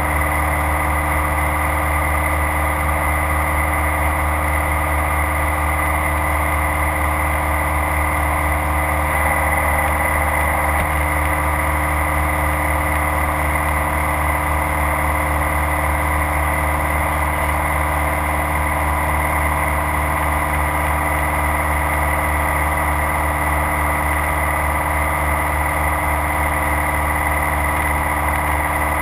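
Light aircraft's engine and propeller running at a steady, unchanging drone in flight, heard from inside the cabin.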